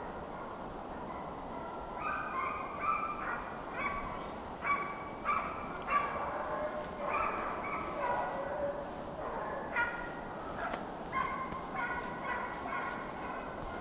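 Several deer-hunting dogs baying at a distance in repeated, overlapping calls as they run a deer's trail, over a steady hiss of wind and rain.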